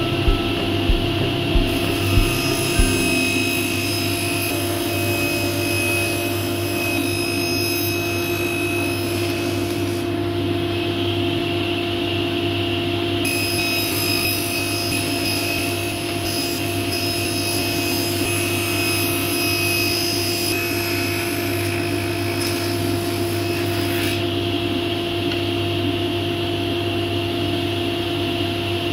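Table saw running with a steady hum while ripping a glued-up panel of laminated plywood (formply) strips. The high cutting hiss drops away for a few seconds near the middle, then returns with the next pass.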